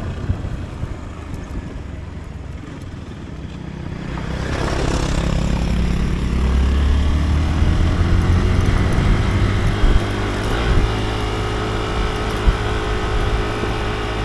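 Motorcycle engine running under way, with low rumble. About four seconds in it gets louder and its pitch rises as it accelerates, then it holds a steady pitch.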